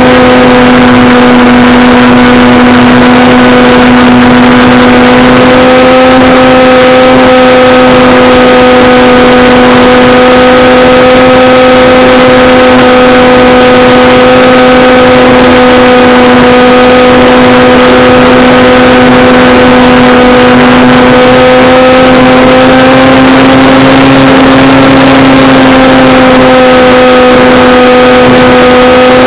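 Electric motor and propeller of a Tidewater RC seaplane, recorded by its onboard camera in flight: a steady, loud buzzing drone over a rush of wind. The pitch rises slightly about 24 seconds in, then settles back.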